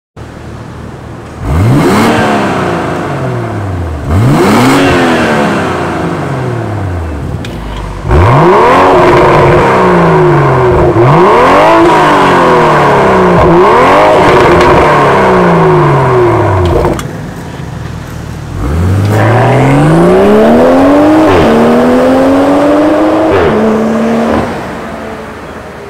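BMW M340i's B58 turbocharged inline-six, heard through a Fi Exhaust valvetronic catback, revving loudly: two single blips, then a quick run of repeated revs. Near the end comes a long climbing pull with a drop in pitch, as the car accelerates away and shifts up.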